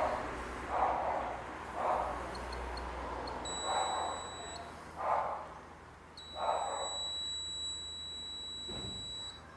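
Digital angle torque wrench beeping twice with a steady high tone, a short beep and then one about three seconds long, the signal that the set tightening angle has been reached. Short muffled sounds come about once a second underneath.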